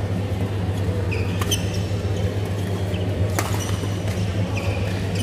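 Badminton rackets striking a shuttlecock: two sharp hits about two seconds apart, over a steady low hum.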